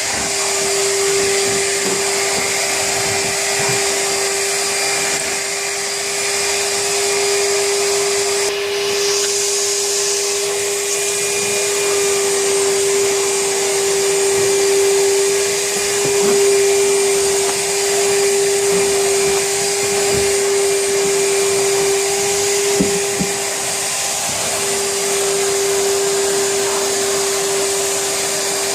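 Charles wet and dry vacuum cleaner running steadily: a constant motor whine over a rush of air, with a brief change in the airflow about nine seconds in.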